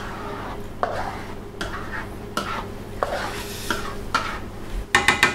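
A spatula stirring and scraping round a stainless steel wok through a thickening cornstarch sauce, one stroke about every three-quarters of a second. Near the end comes a quick clatter of sharp metal knocks.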